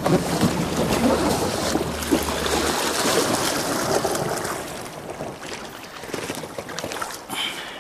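Water splashing and sloshing around boots wading in the shallows beside an inflatable PVC boat; the splashing fades after about five seconds. A low steady hum stops about three seconds in.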